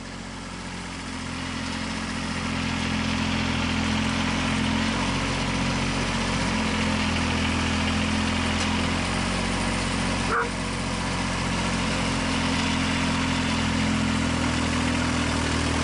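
Compact farm tractor's engine running steadily, growing louder over the first few seconds and then holding. A brief high squeak about ten seconds in.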